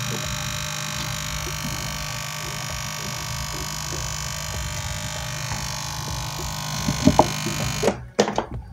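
DH Discovery home theater amplifier switched on, giving a loud, steady electrical hum and buzz that cuts off abruptly near the end, with a few handling knocks. The repairer traces the sound to the power transformer, overloaded by a burnt-out, shorted rectifier diode.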